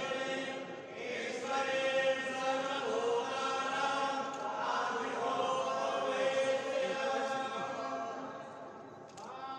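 Hindu mantras chanted in a steady, held voice during a temple puja, fading somewhat near the end.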